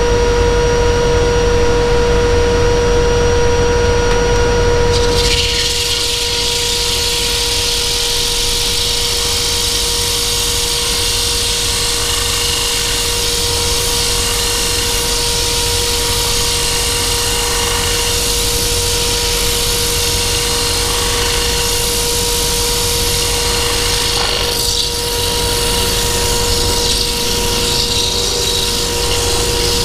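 Wood lathe running with a steady motor hum. About five seconds in, a tool is put to the spinning wood, and a steady hissing scrape of wood being worked joins the hum and carries on, briefly easing off a little past twenty seconds in.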